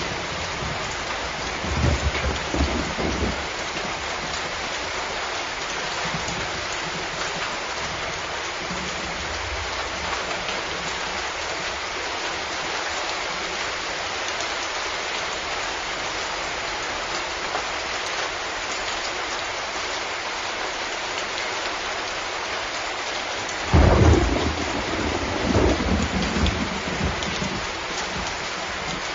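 Steady heavy rain falling, with a short rumble of thunder about two seconds in and a louder roll of thunder near the end that lasts a few seconds.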